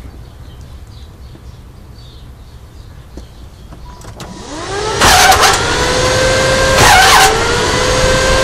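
Starter motor cranking a small-block Chevy V8 over, starting about four seconds in. Its whine rises as it spins up and is broken by three loud harsh bursts about two seconds apart.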